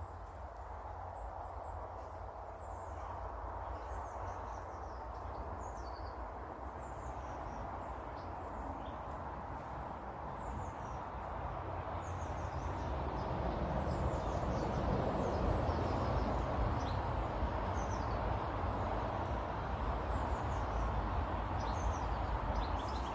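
Small garden birds chirping and tweeting in short high calls throughout, over a steady low rumble and hiss of background noise that grows louder about halfway through.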